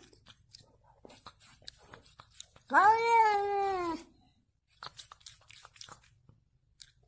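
A cat meowing: one long, drawn-out call about three seconds in, lasting over a second and sinking in pitch at the end.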